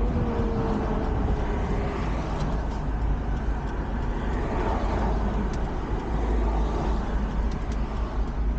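Road and engine noise heard from inside a moving van's cabin: a steady low rumble with tyre hiss, and a faint hum that fades out about two seconds in.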